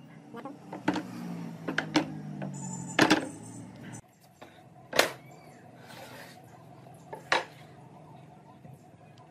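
Pine boards and cut-out wooden pieces knocking and clattering against a wooden workbench as they are handled and set down, with a handful of sharp knocks, the loudest about three and five seconds in.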